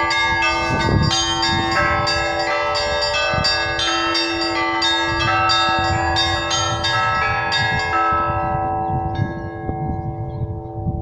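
Russian Orthodox church bells rung by hand: several small bells struck in a quick, even pattern, a little over two strokes a second, over a steady lower ringing tone. About eight seconds in the quick strokes stop and the bells ring on and fade, with one last stroke soon after.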